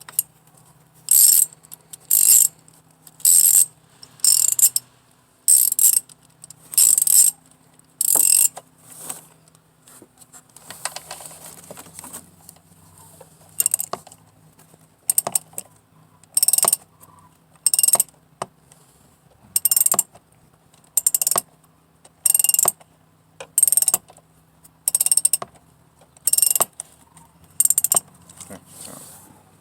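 Ratchet wrench with a 10 mm socket loosening the purge valve's mounting bolt: a short burst of ratchet clicks on each back-swing, about one every second and a bit, with a pause near the middle.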